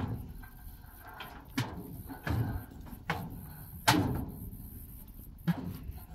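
A series of about six sharp knocks or thuds at irregular intervals, the loudest a little before the four-second mark.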